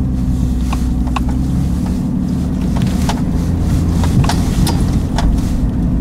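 Tow vehicle's engine running under load in the cab while pulling a camper trailer out through deep snow, its note shifting a couple of seconds in and rising briefly about four seconds in. A few scattered sharp clicks and knocks sound over the engine.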